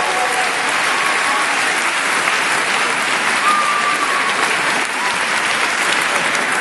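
Steady, dense applause: a crowd and choir clapping their hands together.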